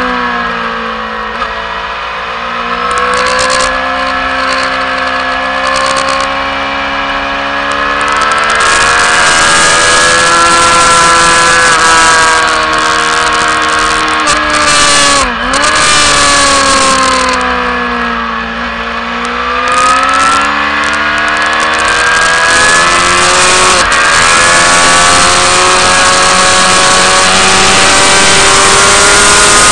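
Racing motorcycle engine heard from on the bike, its pitch falling off and then climbing again several times as the rider brakes into corners and accelerates out, with a quick sharp dip about halfway through. Wind rush runs under the engine.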